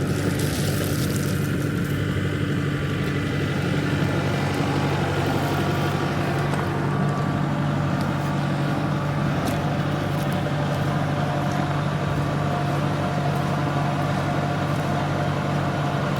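Kubota tractor's diesel engine running steadily at a constant speed.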